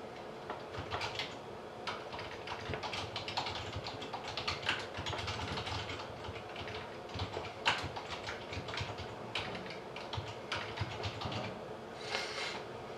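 Typing on a computer keyboard: irregular runs of keystroke clicks.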